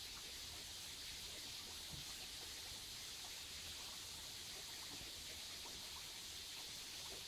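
Shallow stream water running over stones: a steady, faint hiss with no distinct splashes.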